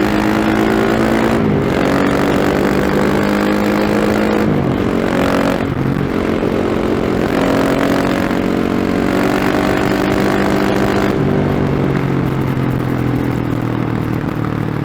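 KTM 690 SMC R's single-cylinder engine through a Remus slip-on exhaust with its dB killer fitted, pulling hard under load. The pitch climbs and then drops sharply several times as it changes gear.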